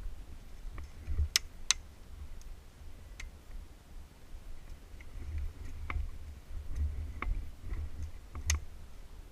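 Six or so sharp, separate clicks at irregular spacing, three of them louder, over a constant low rumble.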